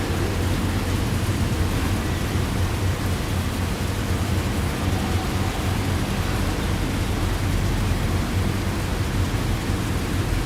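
Steady heavy rain, an even unbroken hiss with a deep low rumble underneath.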